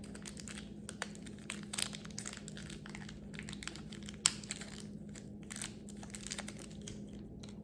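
Plastic packaging crinkling as it is handled, with scattered sharp clicks, the loudest about four seconds in, over a steady low hum.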